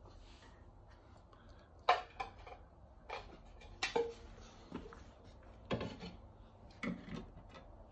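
Light, irregular knocks and clatters of a small toy cooking pot and toy kitchen pieces being picked up from a wooden floor and set down on a toy stove, about one knock every second from about two seconds in.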